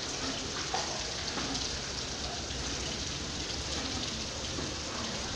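Steady rushing hiss of water, like water pouring or spraying into a hatchery tank.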